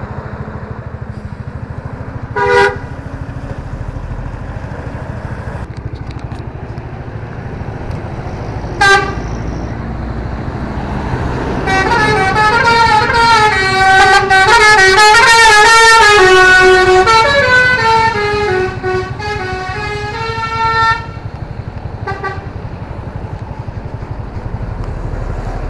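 A tour bus's telolet basuri musical horn: two short toots, then a loud tune of stepping notes for about nine seconds, and one more short toot after it, over the steady low rumble of the bus engine.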